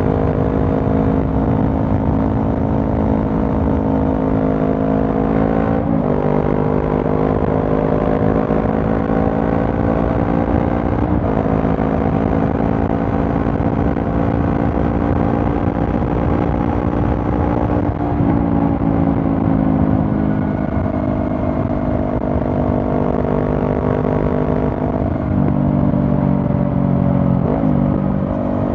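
Honda CB500F's 471 cc parallel-twin engine running through a Mivv GP Pro aftermarket exhaust while riding at a fairly steady pace. The engine note drifts slowly up and down and breaks briefly several times, as with gear changes and throttle changes.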